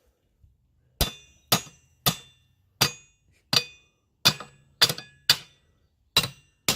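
Hammer blows on metal, about ten at an uneven pace, each with a short metallic ring: knocking a weathered, stuck car part loose.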